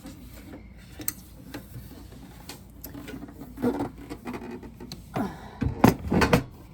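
Small steel toolbox being handled: scattered light clicks and taps, then a cluster of louder metal knocks and clunks near the end, as of its drawers and lid being moved.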